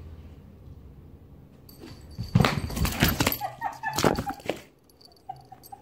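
A cat jumping and landing on a hard floor right beside the microphone: a burst of loud thumps and scrabbling paws, with a few quick high squeaks in the middle and again near the end.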